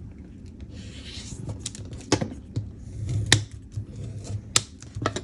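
Paper being handled and folded on a work surface: soft rustling, with several sharp clicks and taps, the loudest about three seconds in.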